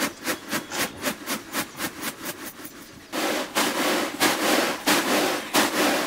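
Rhythmic knocks on wood, about four a second, fading out a little before halfway. Then a rough scraping or rubbing sound with strong strokes about two to three a second, like food being chopped or worked by hand.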